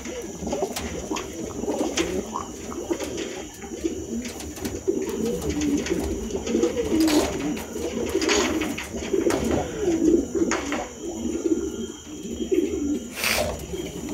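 Domestic pigeons cooing over and over in low, wavering coos, with a few sharp clicks in between.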